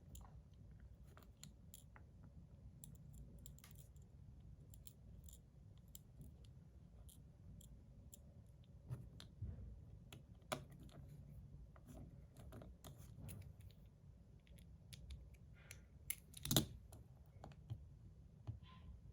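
Faint, scattered clicks and light taps of small metal parts and a small screwdriver being handled while a fidget slider is screwed back together, with a sharper click near the end.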